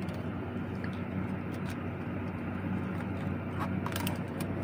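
A few light plastic clicks and taps from a phone holder and tripod stand being handled and adjusted, over a steady low hum.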